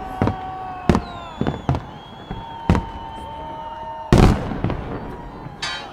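Fireworks salute shells bursting overhead: a string of sharp bangs every half second to a second, with a tight cluster of heavy bangs about four seconds in. A steady tone drifts slightly lower underneath.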